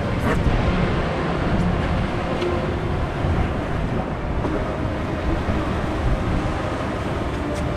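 Steady rumbling rush heard aboard an Intamin river rapids raft: churning water and ride machinery, with no distinct events standing out.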